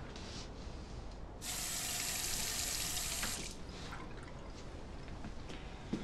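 Kitchen water tap running for about two seconds, starting and stopping abruptly, as a glass is filled with water.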